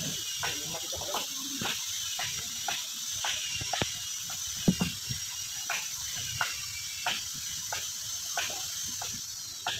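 Irregular sharp knocks and taps of hand tools and timber on a wooden boat hull under construction, about one or two a second, over a steady high-pitched hiss.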